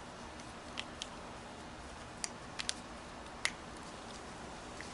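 A Phillips screwdriver turning in the clamp screws of a garden hose coupler: a few faint, sharp clicks spaced irregularly over a steady low hiss.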